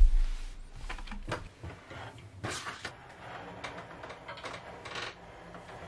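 Tabletop etching press being cranked by its spoked star-wheel handle, its roller and bed rolling with irregular creaks, clicks and knocks while printing an intaglio plate onto damp paper. A low thump comes right at the start.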